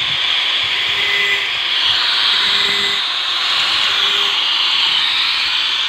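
Steady, harsh rasping noise of a saw being sharpened, swelling and easing slowly without clear separate strokes.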